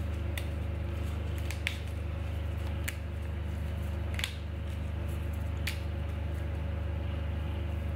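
Steady low hum under a handful of faint, short clicks and rustles as rose petals are pulled off the flower by hand and dropped onto a salad.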